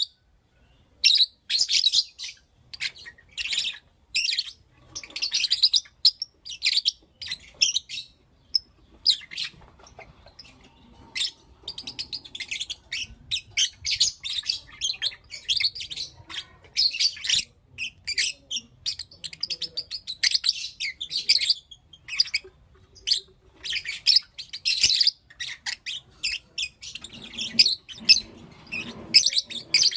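Lovebirds chattering in rapid, high-pitched chirps, packed almost without a break after a pause of about a second at the start.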